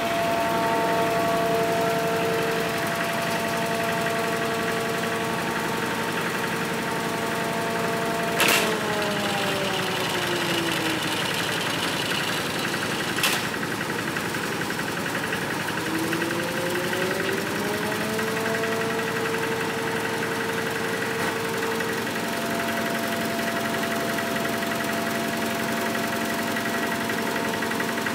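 Engine driving an abaca decorticating machine, running steadily. About a third of the way in, a click, and the engine's pitch falls as it slows; a few seconds later it climbs back up to its steady running speed. A second short click comes near the middle.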